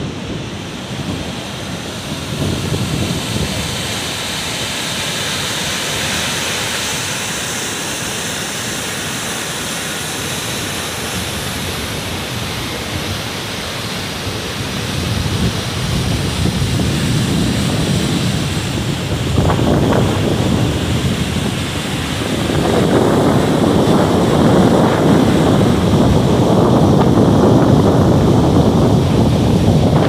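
Mountain torrent rushing over boulders, a steady white-water hiss that grows louder and deeper from about halfway through. Wind gusts on the microphone.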